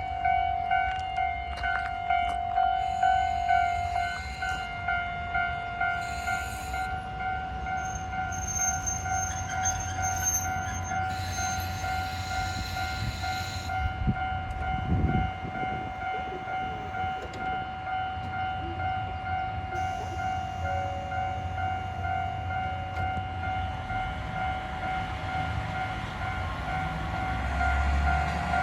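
Japanese level crossing warning bell ringing steadily, about two strokes a second. Beneath it runs the low rumble of a KiHa 40 diesel railcar, which grows louder near the end.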